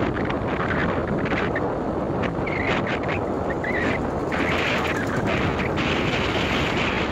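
Wind rushing over the microphone of a moving vehicle, with a steady low rumble of road and engine noise. Irregular crackling from the wind buffeting comes and goes through the middle.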